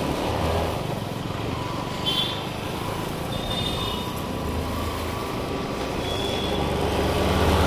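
Motorcycle engine running steadily while riding, with road and wind noise; a few brief high-pitched tones sound over it.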